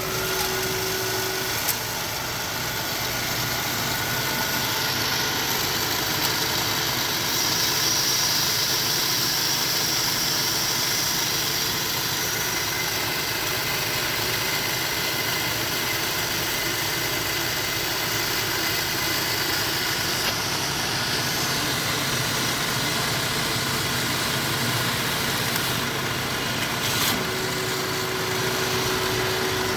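Amada HA-250 horizontal metal-cutting band saw running with a steady mechanical hum, with a sharp click near the start and another a few seconds before the end.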